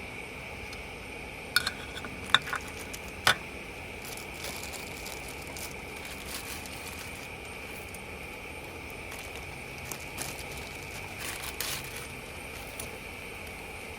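Steady high-pitched insect drone of the rainforest, with a few sharp clinks and rattles of handled gear, the loudest three in the first few seconds and lighter ones scattered later.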